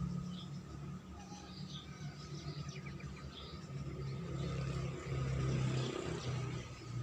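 Scattered short, faint bird chirps over a steady low hum that swells for a couple of seconds near the end, with a quick run of clicks a little before the middle.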